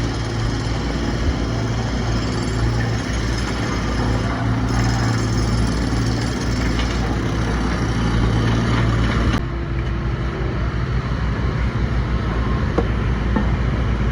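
Diesel engine of a heavy construction machine running steadily with a strong low hum; the higher noise drops off suddenly about nine seconds in.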